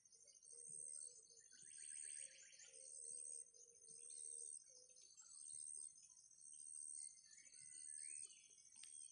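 Faint insect chorus: a high-pitched chirp pulsing about once a second over a steady, fast, high trill, with a short trilled call about two seconds in.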